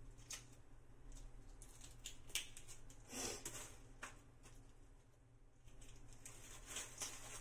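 Faint clicks and crackles of hands peeling the shell off a giant prawn, with a short rustle about three seconds in.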